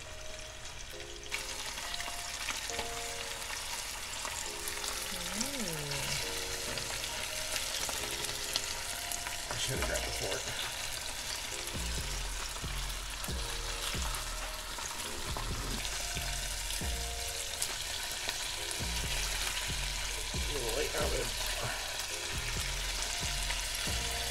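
Coated mangrove snapper fillets frying in hot oil in a skillet: a steady sizzle full of small popping crackles, which grows fuller about a second in.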